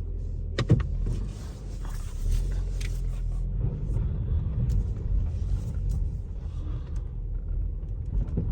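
2014 Jeep Cherokee driving, with a steady low rumble of road and drivetrain noise. A single sharp knock stands out just under a second in.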